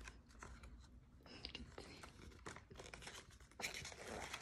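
Faint rustling and scraping of a picture book's paper pages being handled and shifted, with a few short scratchy clicks, a little louder near the end.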